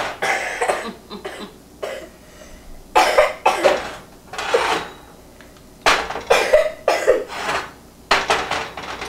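A person coughing in four fits of several quick coughs each: one at the start, one about three seconds in, one about six seconds in and one near the end.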